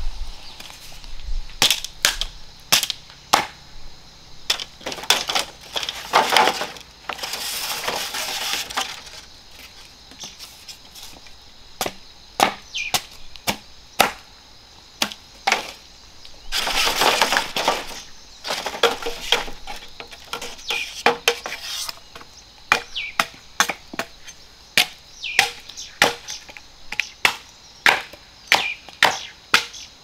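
Repeated sharp chopping blows on wood, about one or two a second, broken by two longer stretches of noise about six and sixteen seconds in.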